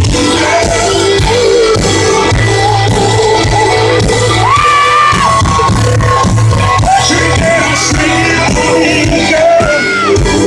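Live amplified country concert: a full band playing loudly with a male lead vocal holding long, bending notes, and scattered shouts and whoops from the crowd.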